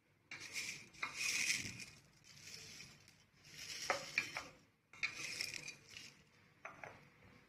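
Crisp, sun-dried fenugreek leaves (kasuri methi) rustling and crackling in repeated bursts as they are handled into a storage container, with a few sharp clinks of the container.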